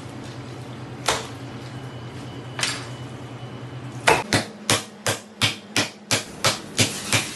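Raw octopus beaten against a worktop to tenderise it: two heavy wet slams about a second and a half apart, then, from about four seconds in, a quick run of about ten slaps, some three a second, as it is pounded with both hands.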